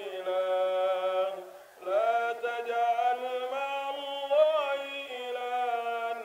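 A man chanting solo and unaccompanied in long, drawn-out melodic notes: a short phrase, a brief breath about a second and a half in, then one long phrase with a rise and fall in pitch past the middle.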